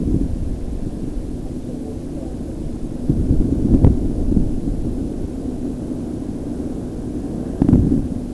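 Hurricane wind buffeting the microphone: a loud, low rumbling rush that swells in a strong gust about three seconds in and again near the end.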